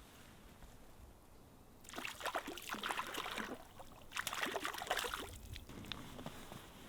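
Lake water splashing and sloshing in two bursts of about a second and a half each, starting about two seconds in, as a small hooked cutthroat trout is landed at the water's edge.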